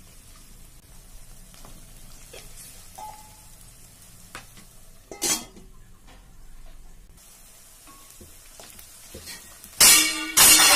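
Chopped onions frying in oil in a pan, sizzling faintly, while a wooden spatula stirs them with a few light knocks against the pan. There is one sharp clatter about halfway through, and a much louder scraping clatter of the spatula in the pan near the end.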